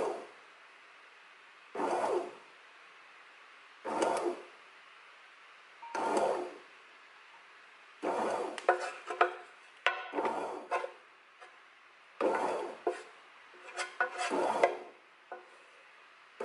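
Bread machine's kneading paddle churning dry shredded fish floss against the non-stick pan, a short rasping scrape about every two seconds as the paddle turns in pulses. In the second half the scraping comes faster and more irregularly, with small knocks as a wooden spatula stirs the floss in the pan.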